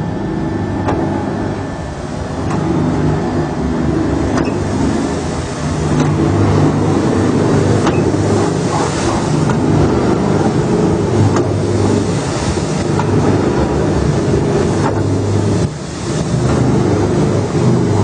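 Brine injector machine running while it injects whole chickens: a steady mechanical hum of the motor and brine pump, with faint clicks from the needle head working. Two brief hisses come about 8 and 12 seconds in.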